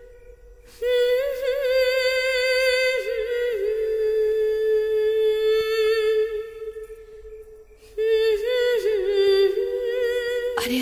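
Sustained humming on a steady high note, with a second, lower note held beneath it and an occasional waver in pitch. It fades out about six and a half seconds in and comes back about a second and a half later.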